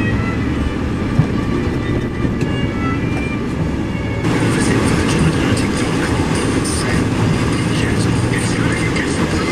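Steady low road rumble inside a moving car, with classical music playing faintly from the car radio over it. About four seconds in, the sound changes abruptly to louder, hissier road noise.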